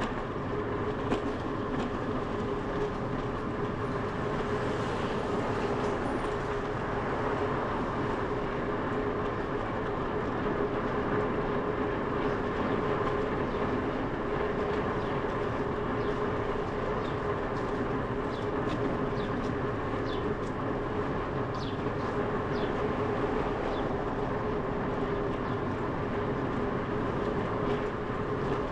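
Bicycle rolling along an asphalt street: steady tyre and drivetrain noise with a constant hum.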